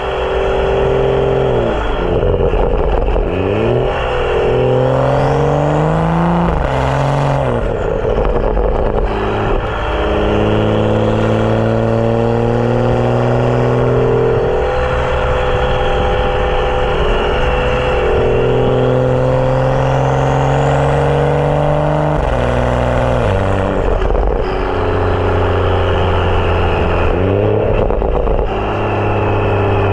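BMW 335i's turbocharged N55 inline-six, fitted with a catless downpipe and M Performance exhaust, driving. The pitch climbs under acceleration and drops back several times as it shifts, with stretches of steady cruising in between.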